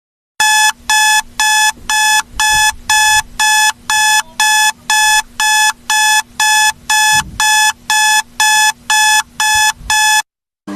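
Electronic alarm beeping: a loud, steady train of identical high-pitched beeps, about two a second. It starts about half a second in and stops just before the end.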